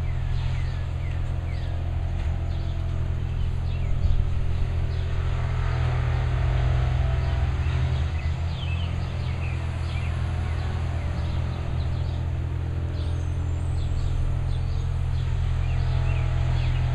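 Steady low drone of heavy diesel machinery running a short way off, with birds chirping over it.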